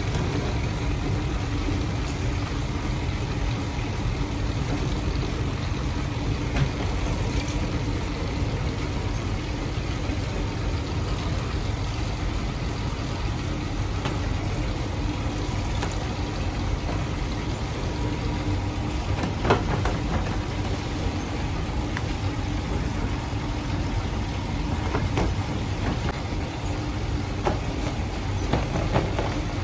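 Steady running drone of bakery machinery, with a few faint knocks now and then.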